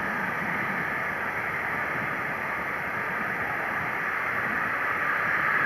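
The Airbus A350-900's Rolls-Royce Trent XWB turbofan engines spooling up for takeoff: a steady rushing jet noise that grows louder near the end.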